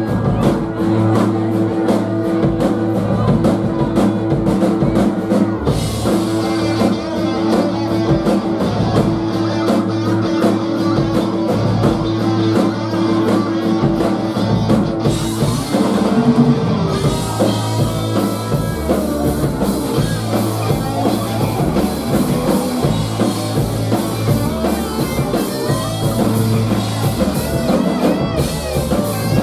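Live rock band playing loud through amplifiers: electric bass, electric guitar and a drum kit. The drums keep a fast even beat at first, and the playing changes about six seconds in and again around the middle.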